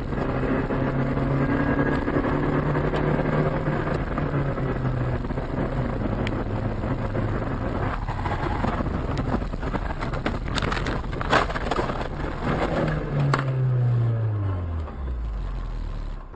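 Car engine and road noise heard from inside a moving car, with a steady engine hum. About ten to twelve seconds in comes a run of knocks and one sharp bang, then the engine note falls as the car slows.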